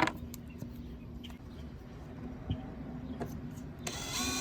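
A sharp click, then low background. About four seconds in, a power drill starts up with a steady whine as it begins drilling a rivet hole in the kayak's hull.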